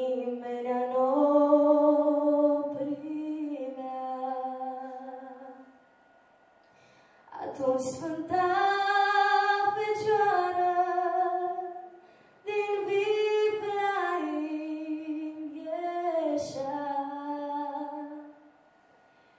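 A girl singing a Romanian Christmas carol (colind) unaccompanied into a microphone, in three long held phrases with a pause about six seconds in and a short breath about twelve seconds in.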